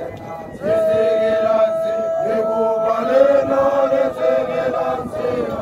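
Men's voices chanting a slow song in long, held notes. The chant comes in about two-thirds of a second in.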